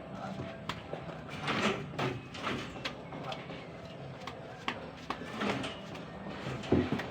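Irregular knocks, clicks and scrapes over a low steady hum, with a louder knock just before the end.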